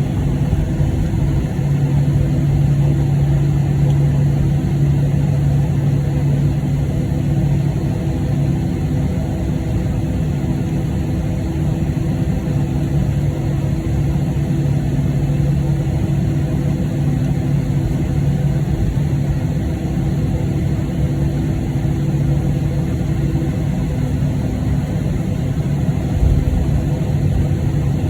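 Steady cabin drone inside a Boeing 737-700 on the ground: an even hum with a strong low tone, from the aircraft's engines idling or its ventilation and auxiliary power.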